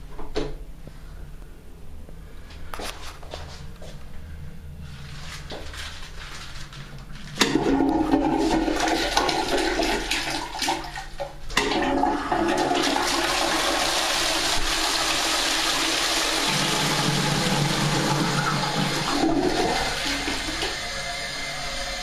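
Toilet flush from a ROCA high-level cistern into a Dolomite bowl, set off by a wall push button. A few clicks come in the first seconds, then about seven seconds in the water rushes in loudly. It runs steadily with a brief dip and eases off near the end.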